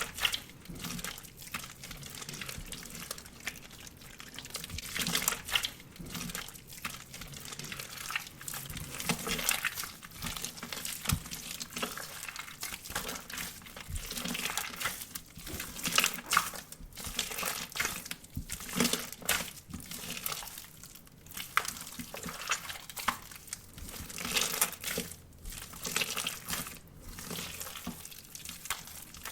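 Water slime being squished and mixed by hand, making irregular wet, crinkly sounds, one after another every second or so.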